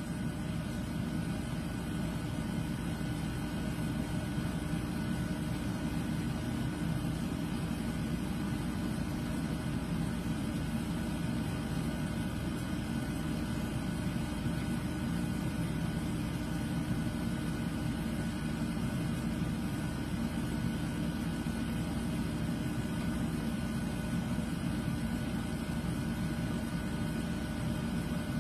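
Steady low mechanical hum with a faint constant high whine, unchanging throughout.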